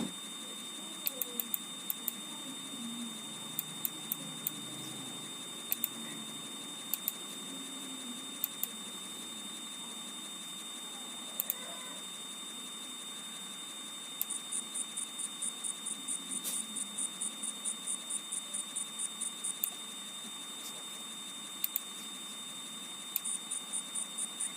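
Faint steady hiss and hum, with scattered sharp clicks that often come in pairs. About fourteen seconds in, a quick even run of clicks lasts some five seconds, and a shorter run comes near the end.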